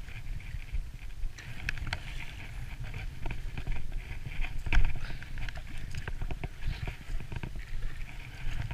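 A hooked sea bass being played at the surface near the rocks: irregular splashes and small clicks over a low rumble of wind or handling on the microphone, with a sharp knock about five seconds in.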